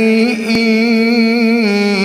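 A man's solo voice chanting an Islamic ibtihal, holding one long melismatic note that wavers in ornamental turns.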